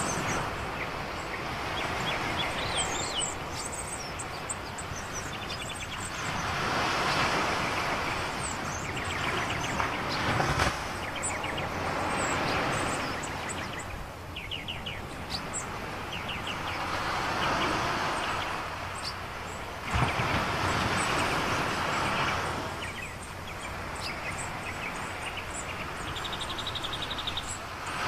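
Sea waves washing ashore, the surf noise swelling and falling back every few seconds, with small birds chirping faintly.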